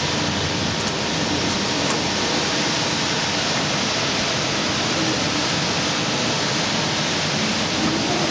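Steady, loud hiss like rushing air from a press brake fitted with a pneumatic hemming bench, with no strokes or impacts.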